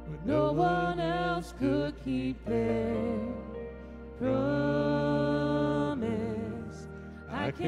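Live worship band: voices singing a slow melody over keyboard and guitars, with one long held note about four seconds in.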